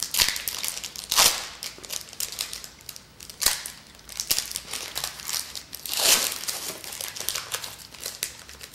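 Packaging of a trading-card box being crinkled and torn open by hand, in irregular crackling swishes with a few louder rips.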